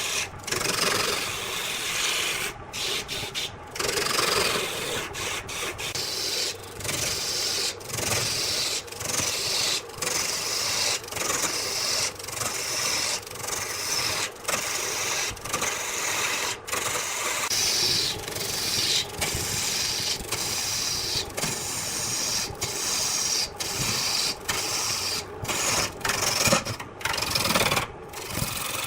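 Wood spinning on a wood lathe being worked with a hand-held tool: a continuous rasping, scraping noise broken by brief breaks every second or two.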